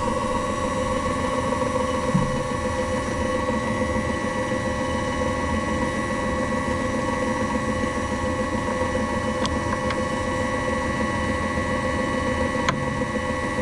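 A small machine tool's motor running steadily, with a steady whine of several tones over a mechanical hum. There are a couple of faint clicks near the end.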